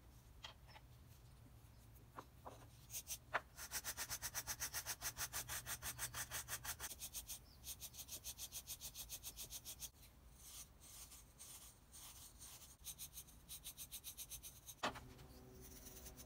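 Brass wire brush scrubbing small screws and nuts of a Stanley No. 5 hand plane: quiet rhythmic back-and-forth strokes at about four a second, in runs with short pauses. A few light clicks come as the parts are handled.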